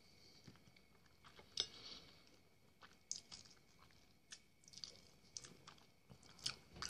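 Quiet close-up chewing of a piece of chicken meat eaten by hand, with scattered faint short clicks of the mouth and teeth.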